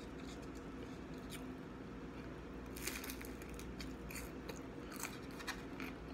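Crunchy bites into a fried spring roll, then close-mic chewing: sharp crackles of the crisp wrapper about three seconds in, followed by scattered crunching.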